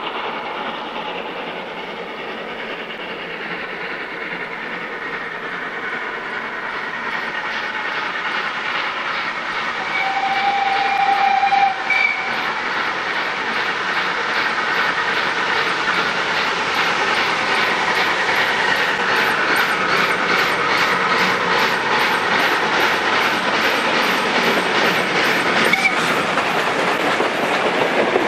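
Mallet steam locomotive E211 approaching with its exhaust chuffing in an even beat that grows louder and quicker. Its whistle sounds once about ten seconds in for about two seconds. Near the end the carriages roll past with a clickety-clack.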